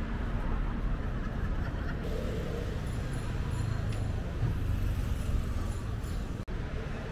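City street traffic: a steady rumble of cars and other road vehicles, with a brief sudden cut-out in the sound near the end.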